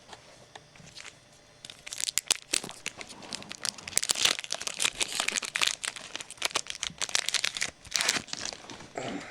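A trading card pack wrapper being torn open and crinkled by hand, a dense run of rapid crackling that starts about two seconds in and lasts around six seconds.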